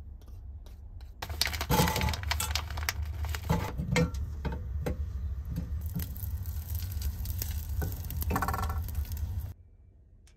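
Clattering of objects being handled: a quick, irregular run of clicks, knocks and rattles over a low rumble, starting about a second in and cutting off suddenly near the end.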